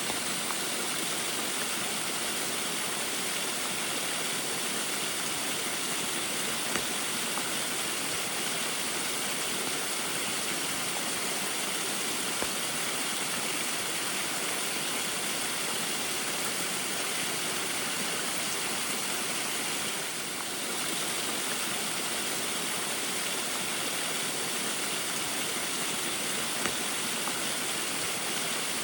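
Small waterfall splashing steadily in the rain, an even rushing hiss of falling water with a few faint drip-like ticks.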